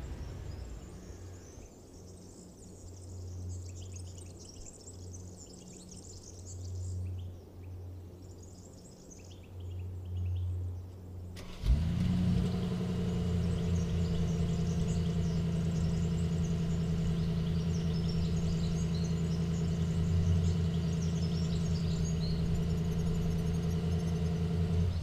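Mercedes-AMG G 63's 4.0-litre twin-turbo V8, first heard as a low, quiet hum with birds chirping. About halfway through it fires up with a sudden bark and settles into a loud, steady idle.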